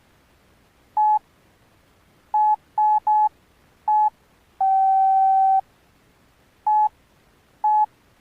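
Key beeps from an Alcatel OneTouch Retro 2017B cell phone as its buttons are pressed: seven short beeps at the same pitch at an uneven pace, with one longer, slightly lower tone held for about a second in the middle.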